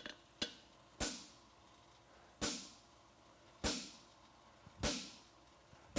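Hammer blows on a handled fullering tool, marking the fuller groove in a hot steel horseshoe on an anvil: six sharp metallic strikes, each ringing briefly. The first two come close together, then about one every second and a bit.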